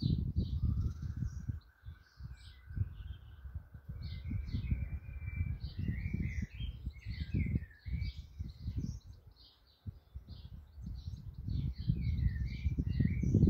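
Sparrows chirping in quick repeated notes, mixed with phrases of blackbird song, over a loud, gusty low rumble on the microphone.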